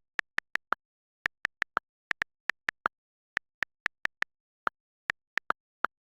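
A run of short electronic beeps, about four a second and unevenly spaced, switching between a higher and a lower pitch.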